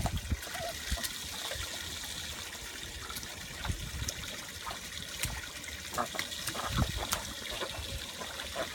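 Water trickling from a garden hose onto a wooden deck while ducks splash and paddle in the shallow water, with scattered short splashes.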